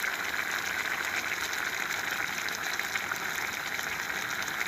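Rice cooking in tomato broth at a rolling boil in a pot on a gas stove: a steady bubbling with small crackling pops.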